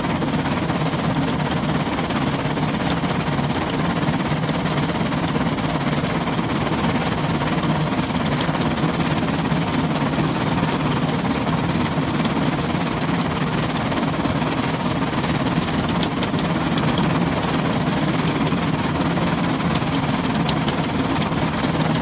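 Steam train running, a steady rumble with hiss and no distinct exhaust beats.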